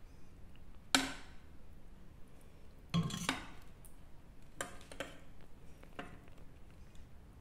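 Metal ladle clinking and knocking against a metal baking pan while spreading tomato sauce over lasagna sheets: a series of sharp clinks, the loudest about a second in, a pair around three seconds, and a few lighter ones after.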